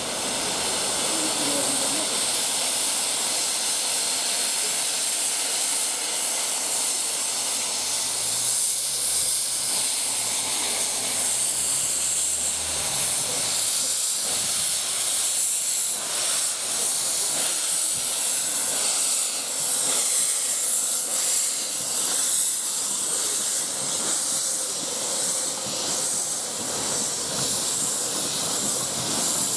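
Miniature steam locomotive with its cylinder drain cocks open, blowing off a loud, steady hiss of steam as it starts to move away.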